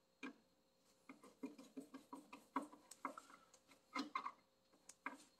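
Faint, irregular clicks and taps of a hand tool and hard plastic parts being handled during work on the engine bay's plastic covers.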